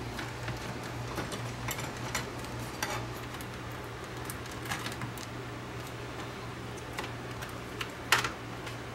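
Handheld screwdriver working screws out of a cassette deck's metal bottom plate: a few small, scattered metallic clicks and ticks, over a steady low hum.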